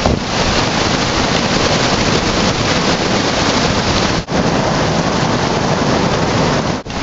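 Rushing whitewater of a mountain river pouring over granite boulders, a loud steady rush, broken off briefly about four seconds in and again near the end.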